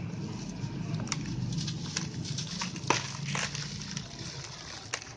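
White concrete sand being crumbled, giving a gritty crumbling with scattered sharp crunchy cracks, the sharpest about three seconds in. A low steady hum runs beneath.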